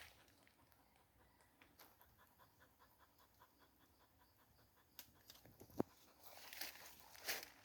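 A dog panting faintly and quickly, about three to four breaths a second. A sharp click and some rustling follow near the end.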